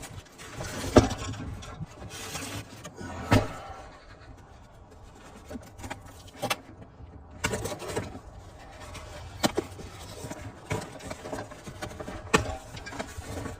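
Delivered items and packaging being handled during unboxing: scattered knocks and clicks every second or two, over a low steady rumble.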